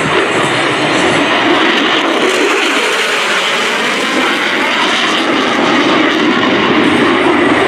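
An F-35C Lightning II's single Pratt & Whitney F135 afterburning turbofan makes a loud, steady rush of jet noise as the jet flies past in a steep banked turn. A faint tone slides down in pitch around the middle, and the noise swells a little near the end.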